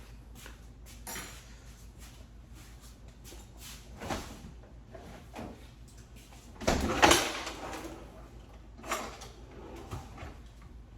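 Kitchen door and drawer handling noises: a few scattered knocks and rustles, the loudest a longer clatter about seven seconds in, over a low steady hum.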